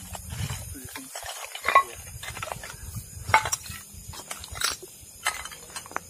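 Footsteps crunching over broken ceramic floor tiles and rubble, with irregular sharp cracks and clinks as the shards shift underfoot.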